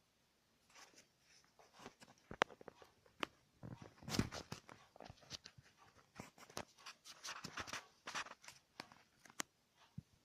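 Irregular sharp clicks and short scratchy rustles close to the microphone, coming thick and fast through the middle and thinning out near the end.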